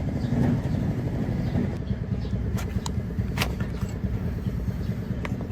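Steady low rumble of an idling engine, with a few short sharp clicks around the middle and near the end.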